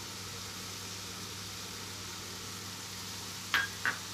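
Minced chicken frying gently in a pan on a gas stove, a faint steady sizzle with a low hum, broken by a few short clicks in the last second.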